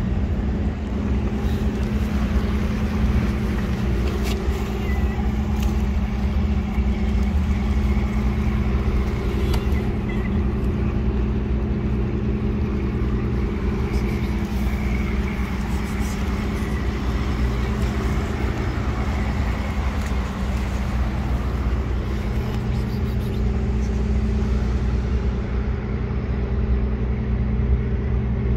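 Steady low drone of motor traffic running without a break: an even engine hum with no rise or fall.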